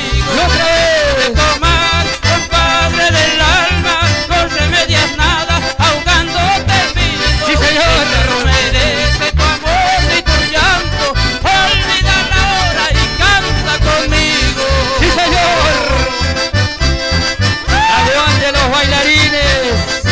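Live band music led by two button accordions, with acoustic guitars and a steady bass beat.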